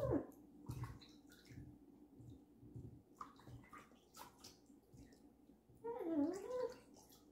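Knife chopping on a cutting board: faint, irregular taps. About six seconds in comes a short vocal sound that slides down and back up in pitch.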